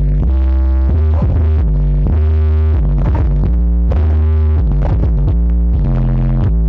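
Loud electronic dance music with a heavy, deep bass line that changes note about every second, with synthesizer notes above it.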